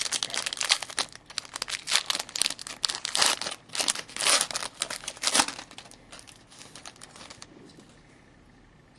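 Wrapper of a hockey card pack being torn open and crinkled, a dense crackling that runs for about five and a half seconds and then dies away to a few faint rustles.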